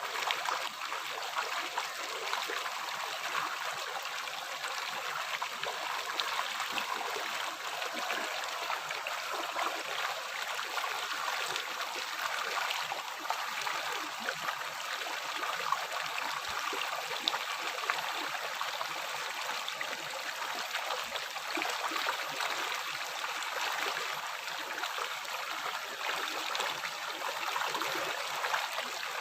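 A river flowing: a steady, unbroken rush of running water, strongest in the middle and upper range, with fine splashy detail throughout.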